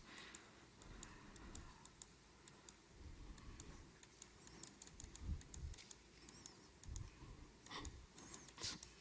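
Near-silent room tone with faint, irregular clicks of button presses stepping back through presentation slides.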